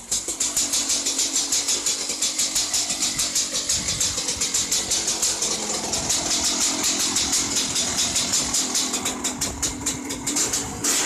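2001 Husqvarna WR 250's single-cylinder two-stroke engine idling with an uneven, pulsing beat of about five pulses a second, freshly started after an air filter change.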